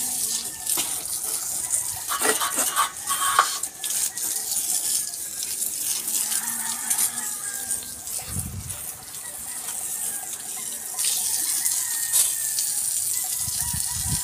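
Water hissing and splashing, with a few sharp knocks about two to three and a half seconds in.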